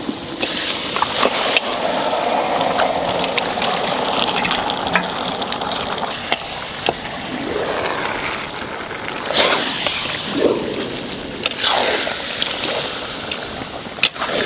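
Yogurt-marinated mutton hitting a large pan of hot oil and fried onions, sizzling steadily, with a metal spatula scraping and clacking against the pan as the meat is stirred in.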